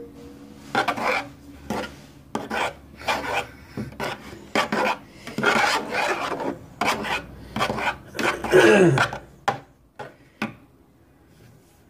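Irregular rasping, rubbing scrapes in quick runs, with a short falling squeak near the end. They stop about ten and a half seconds in.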